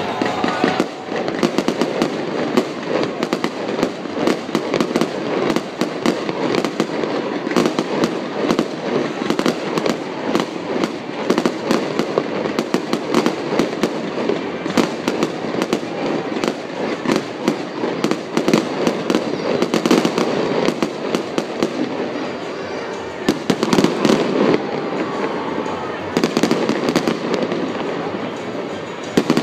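Fireworks display: aerial shells bursting with dense, nearly continuous crackling and bangs, many pops a second.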